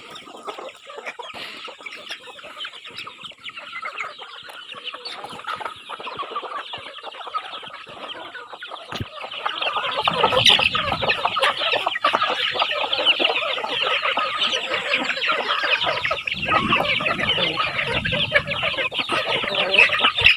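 A flock of chickens clucking together in a dense, continuous chatter, much louder from about halfway through.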